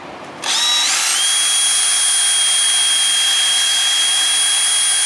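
Cordless Craftsman power tool's motor starting about half a second in, rising in pitch to full speed and then running at a steady high whine, used to deburr a cut piece of stainless steel tubing.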